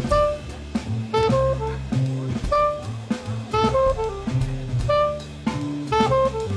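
Jazz trio playing: a soprano saxophone states a melody of short, repeating phrases over upright bass and a drum kit played with sticks.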